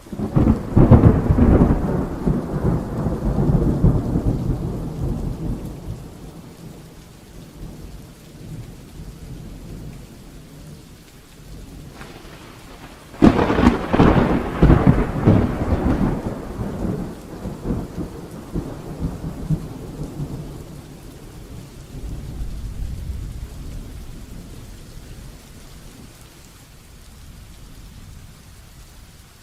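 Heavy rain falling steadily, with two peals of thunder: the first breaks right at the start and rumbles away over about six seconds, the second is a sharper crack about thirteen seconds in that rolls on for several seconds. A fainter rumble swells up again a little past twenty seconds.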